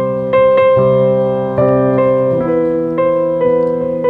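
Background piano music: slow, sustained chords, with a new chord or note struck every half second to a second.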